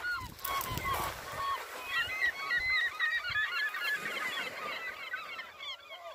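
A flock of gulls calling: many short, overlapping cries, a few at first and then a dense chorus from about two seconds in.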